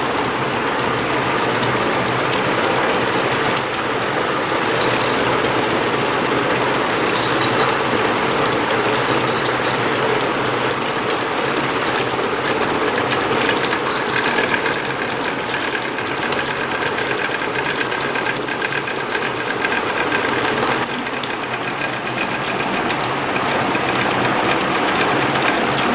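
Stepper motors of a DIY tabletop CNC plotter running under computer control, a continuous buzzing with a fast fine ticking as they drive the pencil carriage along the drawing path. The pitch of the buzz shifts now and then as the moves change.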